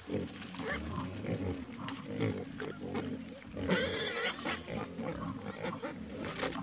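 Sounder of wild boar grunting continually as they forage, with one loud high squeal about four seconds in.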